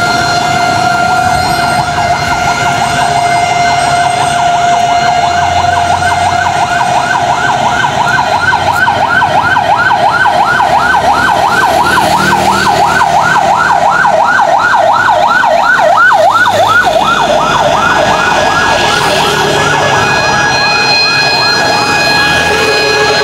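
Fire truck's electronic siren: a steady held tone at first that gives way, a few seconds in, to a fast yelp sweeping up and down about three times a second, growing louder as the truck approaches.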